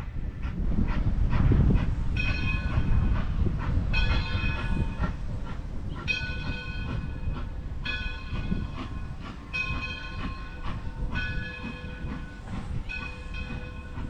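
A steam locomotive's bell ringing in slow, regular strokes, roughly one every two seconds, over the low rumble of the moving train, on D&LN No. 7, an 1897 Baldwin 4-4-0.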